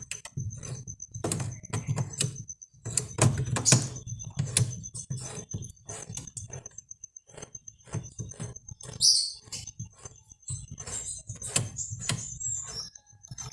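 Irregular clicks, knocks and rattles of metal and plastic parts and tools being handled during washing-machine disassembly, with a faint steady high-pitched tone behind.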